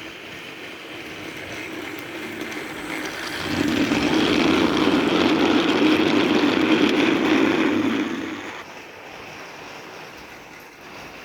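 Battery-powered TrackMaster Nia toy engine running along its plastic track, pulling a train of eight trucks. Its sound grows loud from about three seconds in, as though it passes close, and drops back after about eight and a half seconds.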